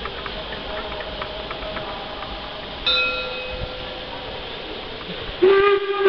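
Steam whistle of the class 52 steam locomotive 52 8177-9 blowing one long steady note for departure. It starts suddenly about five and a half seconds in and is the loudest sound. Earlier, about three seconds in, a single bell-like ring fades away.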